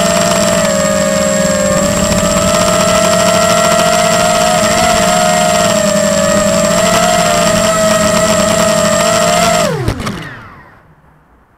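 Tarot 250 quadcopter's brushless motors whining steadily in flight, heard from on board, with small rises and dips in pitch as the throttle is worked. Near the end the quad comes down onto the ground with a knock and the motors wind down quickly, falling in pitch to a stop.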